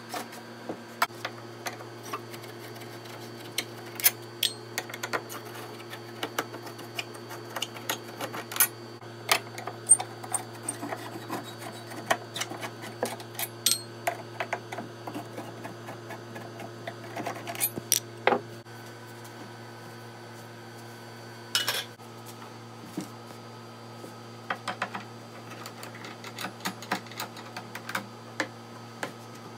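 Scattered, irregular metal clicks and clinks of a screwdriver and hands working on a plastic rocking horse's steel frame and fittings during disassembly. A steady low hum runs underneath.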